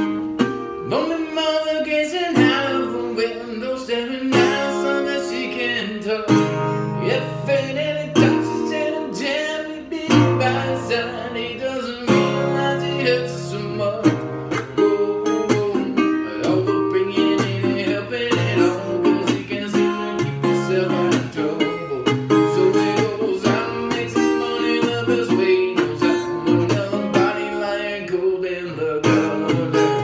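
A man singing to his own strummed resonator guitar, with a metal body and perforated cover plate, in a slow acoustic cover.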